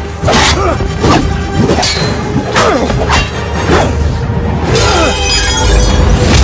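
Movie fight sound effects: a fast run of heavy crashes and impacts, some with a shattering sound, over dramatic background music.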